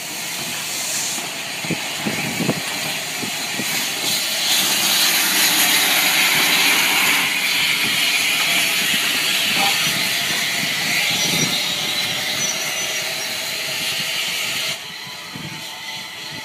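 Steam hissing steadily from Southern Railway Battle of Britain class steam locomotive 34070 Manston, growing louder a few seconds in and cutting off suddenly near the end.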